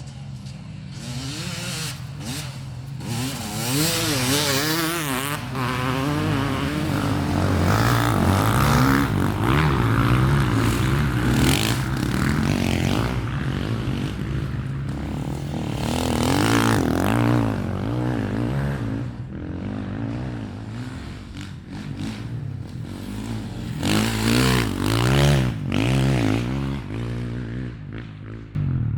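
Off-road racing motorcycle and ATV engines revving hard, their pitch rising and falling again and again as machines accelerate and pass, with scraping and clattering.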